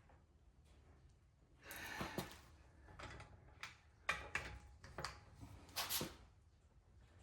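Torque wrench being worked on a car wheel's lug nuts: a scattered series of short clicks and metallic knocks, about half a dozen.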